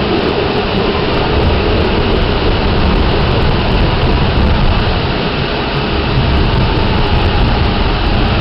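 Staten Island Railway train in motion, heard from inside the car: a loud, steady rumble of wheels on the track.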